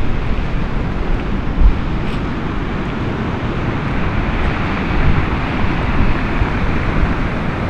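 Storm surf on a stony beach, with strong gusts of wind buffeting the microphone in a heavy rumble. A wave washes up, louder, around the middle.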